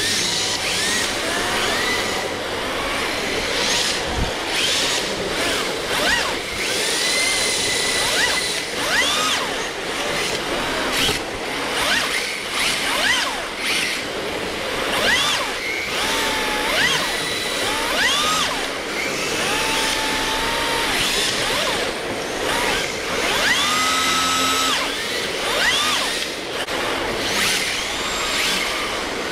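Electric RC drift cars running: several brushless motors whine, rising and falling in pitch again and again as the throttle is worked, over a steady rushing noise.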